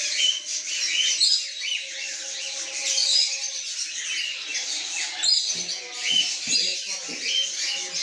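Many birds chirping at once: a continuous chorus of short, high chirps overlapping throughout.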